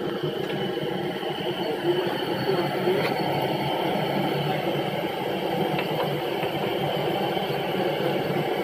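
Steady low mechanical drone, with a couple of faint clicks.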